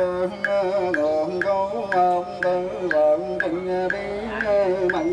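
Chant-like music: a voice in long held, sliding notes over a steady low drone, with a sharp tap about twice a second keeping the beat.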